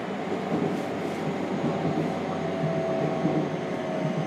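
JR Kyushu 303 series electric train running, heard from inside motor car MoHa 303-2: a steady rumble of wheels on rail. Under it is a faint whine from the Hitachi VVVF inverter and traction motors, which drops slightly in pitch from about two seconds in.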